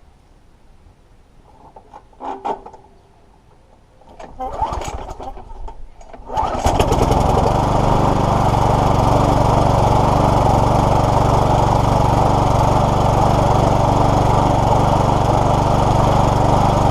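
Small petrol lawnmower engine being pull-started: the recoil cord is pulled and the engine catches about six seconds in, then runs steadily at a constant speed. The engine had been hydrolocked with oil and now runs after being cleared and serviced.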